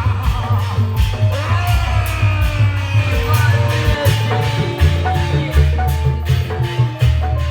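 Music accompanying an Indramayu reog performance: a steady drum beat, a melody with long held and sliding notes, and a heavy bass, with no break.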